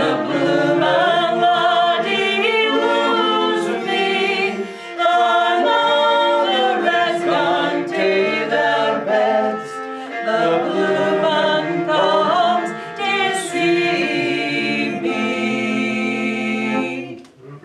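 Two women singing a Scottish folk song together in harmony, with a fiddle accompanying them. The song ends on a held note just before the end.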